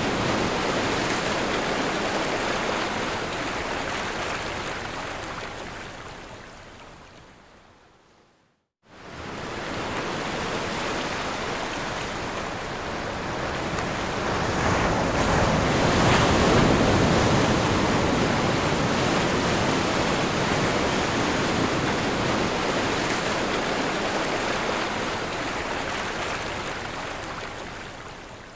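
Ocean surf washing on a shore, a steady rushing noise without separate crashes. It fades away about a third of the way in, breaks off briefly, then swells back, loudest a little past the middle, and fades out again near the end.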